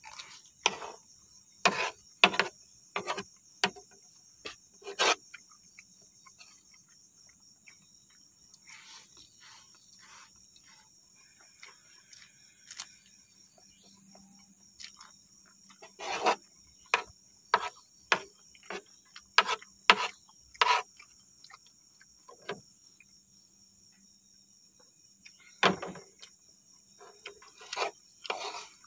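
Close-up eating sounds: spicy instant noodles slurped and chewed in quick, sharp bursts, with a spoon working in the tray. Crickets chirr steadily under them.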